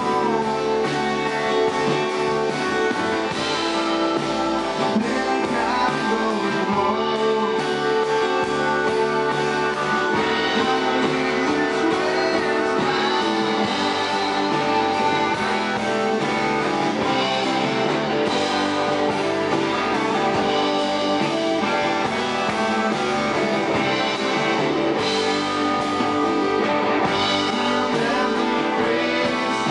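Live band playing a song: electric and acoustic guitars over bass guitar and drums.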